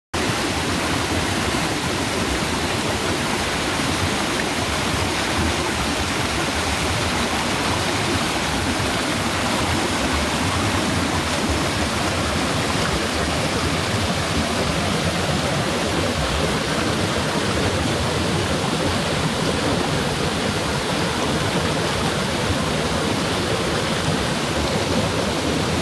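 Mountain stream rushing in white-water cascades over boulders, a steady, unbroken sound of falling water.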